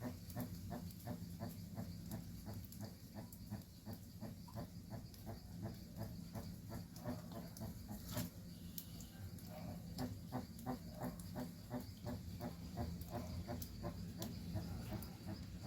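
Jabuti tortoise calling: a long, even series of short clucks, about four a second, with a brief pause a little past halfway, over a steady low hum.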